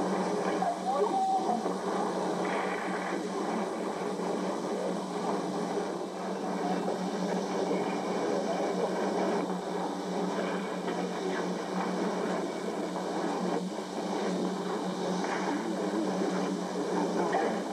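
Steady low hum under a continuous noisy din, with no clear separate events, as on the soundtrack of an old, worn videotape.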